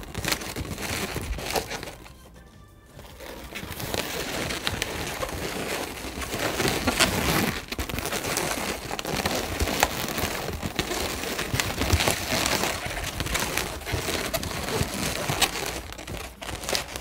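Latex modelling balloons squeaking and rubbing against each other as they are twisted together by hand, with crinkly handling noise. There is a short quieter pause about two seconds in.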